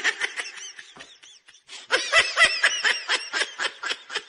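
A toddler giggling in quick, high-pitched bursts: one run of giggles that fades, a short pause a little after a second in, then a louder run of giggling.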